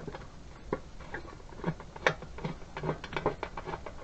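Light, irregular clicks and taps as a small screw is fitted and turned into a motorcycle's side panel.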